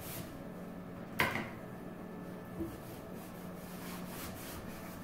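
Cloth wiping a wooden cabinet door and its wooden knob, with one sharp knock against the wood about a second in and a fainter one a little later. A steady low hum runs underneath.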